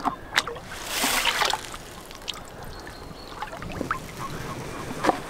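Water splashing and trickling: a short splash about a second in, with a few light knocks and clicks around it.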